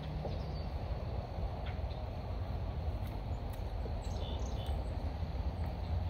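Outdoor woodland ambience: a steady low rumble, with a few brief, faint bird chirps about four seconds in.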